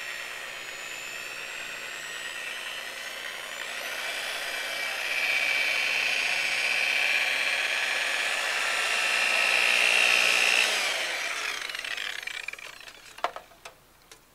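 Electric rotary buffer running with its pad pressed against a fiberglass boat hull, wet-buffing the gelcoat with water to remove the haze left by compounding. Its whine rises in pitch about four seconds in and grows louder, then the motor is switched off about eleven seconds in and winds down, followed by a few short clicks near the end.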